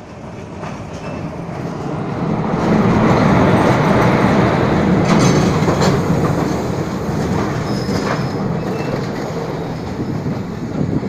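A passing electric-hauled express train on the adjacent track, heard from the door of a moving train: a rush and rumble of wheels on rail that swells about two seconds in and stays loud, with clatter over rail joints as its coaches go by close alongside.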